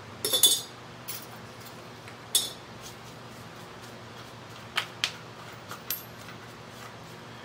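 Small steel clamps and tools clinking and knocking against a metal fixture plate on a milling machine table, several separate sharp clinks with the loudest just after the start. A faint steady hum runs underneath.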